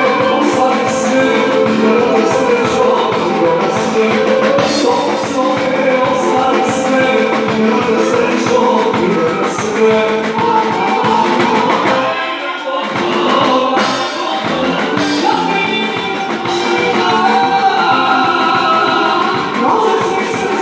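Live band music at full volume: a singer over drum kit, bass and keyboards or guitar keeping a steady beat. The bass and drums drop out for a moment about twelve seconds in, then the band comes back in.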